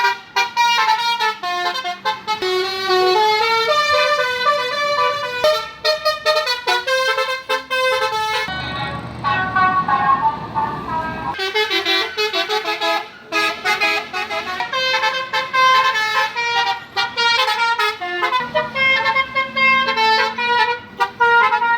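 Bus 'telolet' multi-tone horn (Basuri type) playing a fast melody of short notes that jump from pitch to pitch. A noisier rushing sound with a fainter tone takes over for about three seconds near the middle, then the melody resumes.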